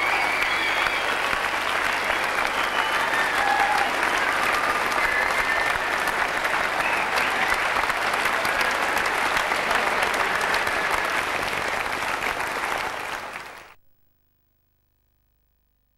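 Audience applauding, dense clapping with a few voices calling out over it; the applause fades quickly to silence a couple of seconds before the end.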